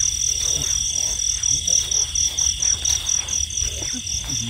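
Night chorus in a wet rice field: insects give a high chirp pulsing about four times a second over a steady high trill, and frogs call low and irregularly underneath.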